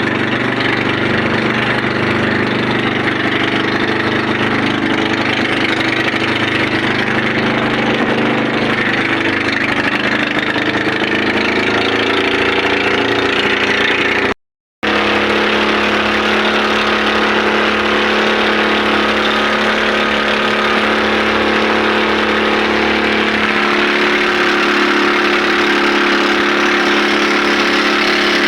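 Small engine running steadily at an even speed. The sound cuts out for about half a second near the middle, then the engine runs on at a steady pitch.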